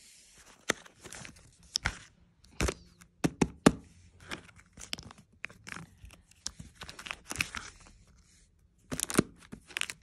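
Panini foil sticker packets crinkling and crackling as they are handled, in an irregular string of sharp crackles.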